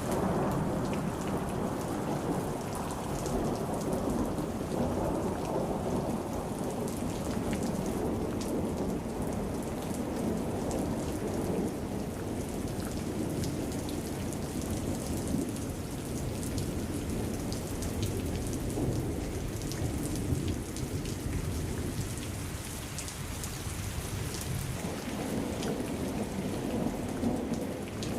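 Heavy rain falling steadily in a thunderstorm, with thunder rumbling low underneath in slow swells, strongest near the start and again near the end.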